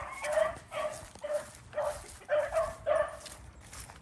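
Beagles baying in a steady string of short, pitched barks, about two a second. This is the hounds giving voice as they run a rabbit's track.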